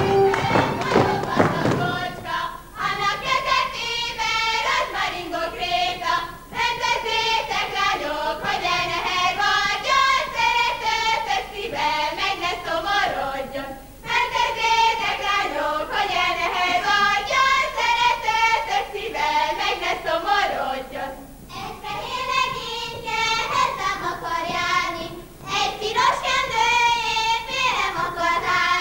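Instrumental folk dance music breaks off about two seconds in, and a group of young women sings a Bukovina Székely folk song without accompaniment, line after line with short breaks between them.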